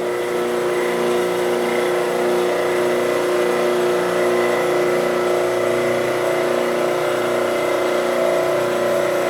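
Ransome Model 10-P welding positioner's electric drive motor and gearing running under power: a steady mechanical whine made of several pitches, with no change in speed.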